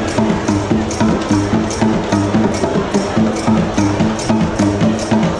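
Background music with a steady percussive beat over a repeating bass line.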